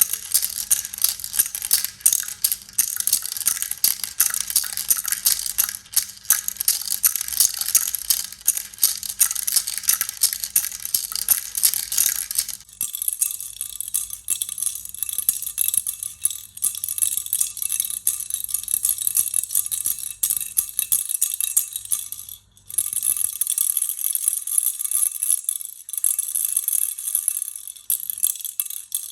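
Baby rattle toy shaken continuously, a dense fast clatter of beads. About halfway through the rattling turns thinner and higher with a faint ringing tone, and it breaks off briefly near the end before carrying on.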